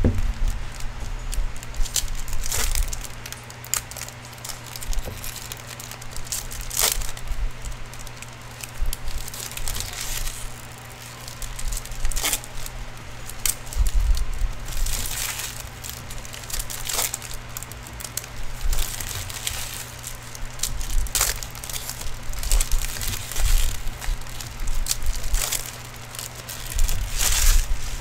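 Foil wrappers of Upper Deck hockey card packs crinkling and tearing as they are opened, with cards slid and flicked through by hand. The sounds come in irregular bursts and clicks over a steady low hum.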